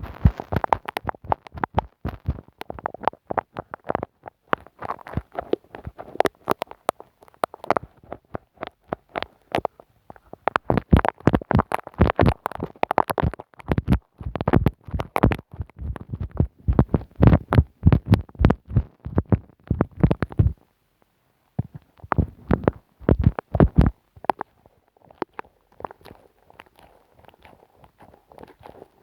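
Glue stick rubbed and dabbed directly on the microphone, giving a rapid, uneven run of sticky clicks and soft low thuds. The sounds break off briefly about twenty seconds in, then return and thin out into sparser, quieter clicks near the end.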